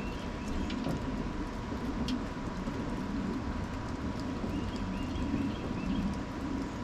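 A quick series of short bird chirps about five seconds in, over a steady low rumble and a faint steady whine, with a few light clicks.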